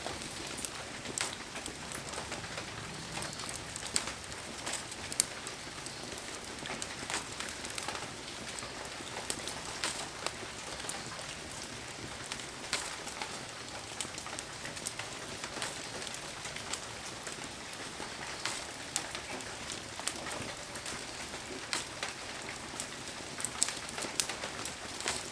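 Heavy rain falling steadily, with many sharp ticks of individual drops striking close by.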